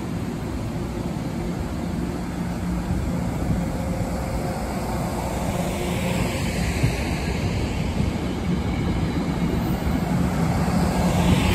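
NJ Transit passenger coaches rolling past close by: a steady rumble of wheels on rail with a low hum underneath, growing louder toward the end.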